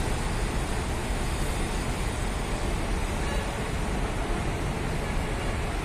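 Steady outdoor traffic rumble: a constant, even noise heaviest in the low end, with no single vehicle or event standing out.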